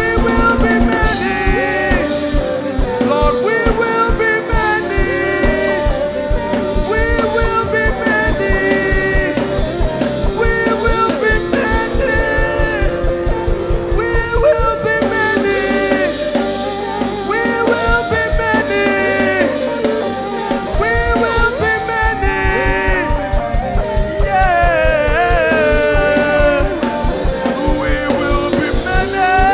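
Live worship music: a band with a steady drum beat under a gliding melodic lead line.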